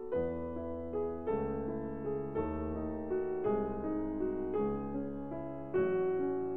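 Background piano music: a slow, gentle melody over sustained chords, with new notes struck about once a second.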